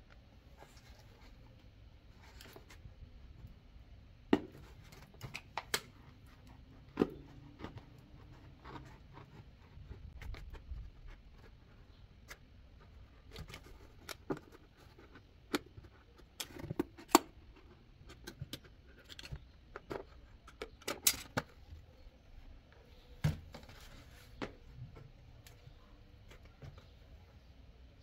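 A utility knife cutting through the wall of a thin plastic bucket, making irregular sharp clicks and snaps with some scraping, as well as knocks from handling the bucket. A few of the snaps are much louder than the rest.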